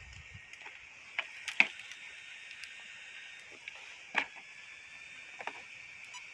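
A few sharp clicks and knocks from an RC monster truck being handled and turned over in the hands, the loudest about one and a half seconds in and another about four seconds in, over a faint steady hiss.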